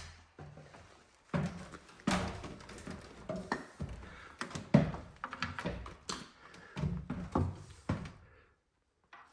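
Irregular knocks and thuds in a small room, as people move about inside a mountain refuge hut, with door sounds among them. They stop abruptly about a second before the end.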